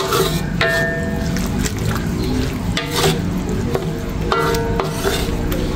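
Wooden spatula stirring and scraping wet sliced galangal, lemongrass and ginger around a wok. Background music with short bell-like notes plays over it.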